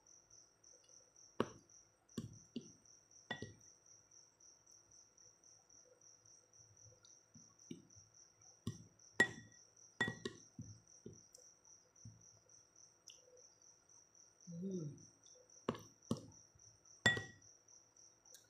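A plastic spoon clinks and scrapes against a ceramic bowl about half a dozen times, sharp and brief, as mashed papaya with milk is scooped and eaten, with soft chewing between. A high, steady pulsing chirp runs underneath throughout.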